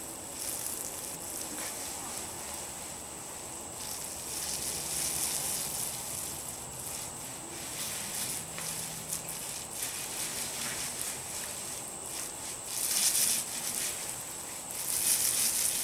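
A 9-inch paint roller rolled back and forth through a first coat of unthinned DuraTex textured coating on a speaker cabinet: a wet, hissing swish that swells and fades, loudest about thirteen seconds in and again at the end.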